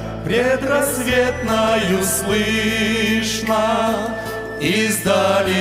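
A worship song in Russian sung live: voices holding long sung notes over a steady instrumental accompaniment.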